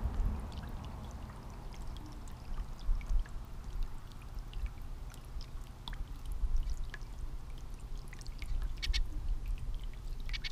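Garden pot fountain bubbling, water welling up from its bubbler and spilling into the basin as a steady trickle, with short faint high ticks scattered through it.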